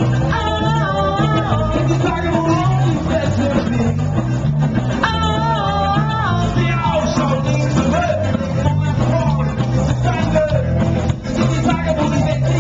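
A live band plays loud music with a saxophone section, electric guitar and a lead singer over a steady beat. Two long held phrases stand out, one about half a second in and another about five seconds in.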